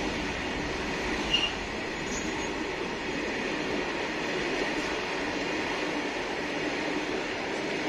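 Freight train of open-top box wagons rolling past close by on steel wheels, a steady rumbling rush of wheel and wagon noise. A brief high squeak cuts through about a second and a half in.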